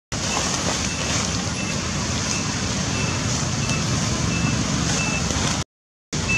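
Forest ambience: a steady rushing background noise with a short, high peep repeating about every three-quarters of a second from about a second and a half in. The sound cuts out briefly at the start and again near the end.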